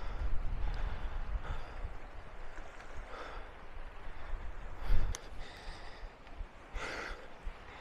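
A person breathing hard from the effort of climbing over boulders, a few heavy breaths a couple of seconds apart. Wind rumbles on the microphone at the start, and there is a thump about five seconds in.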